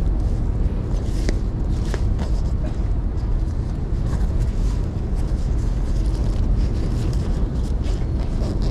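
Busy train-station ambience: a steady low rumble with a few faint clicks and knocks scattered through it.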